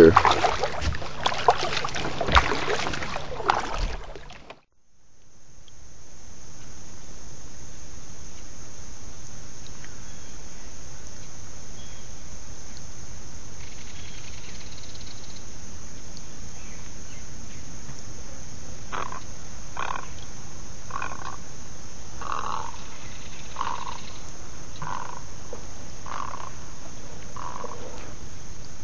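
Steady outdoor hiss, and in the second half a run of about ten short animal calls, roughly one a second. The first few seconds hold handling noise as the camera is moved.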